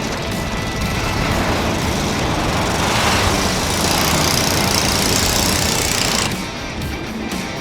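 A small engine running with a rough, uneven chug, under a louder rushing noise from about three to six seconds in.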